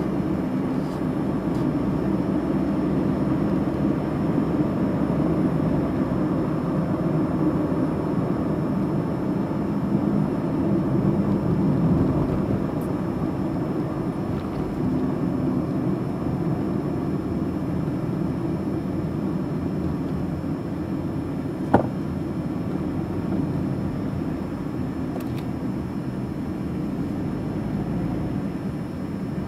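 Steady car engine and tyre road noise heard from inside the cabin through a dash cam while driving. One short sharp knock about three-quarters of the way through.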